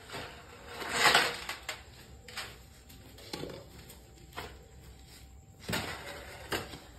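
Hoe scraping and chopping through a heap of wet cement mortar on a concrete floor: one loud scrape about a second in, then a few softer, irregular scrapes and knocks.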